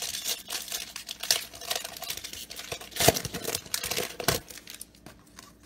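Wrapper of a baseball card pack being torn open and crinkled: a run of short rips and rustles, the sharpest about three seconds in, dying away in the last second.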